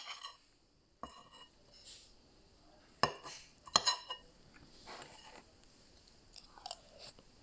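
Hard objects handled and knocked together: about five sharp clinks and clicks, each with a brief ring.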